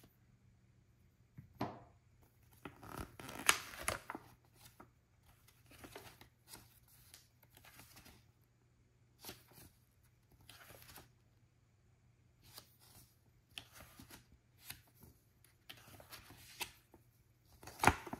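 Paper rustling and flicking as a booklet-style owner's manual is opened and its pages are turned by hand, in short irregular bursts. The loudest page flicks come about three and a half seconds in and again near the end.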